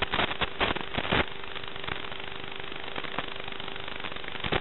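Steady hiss with a faint steady hum, broken by bursts of crackling in the first second or so and again near the end: audio static from a racing drone's analog FPV video link.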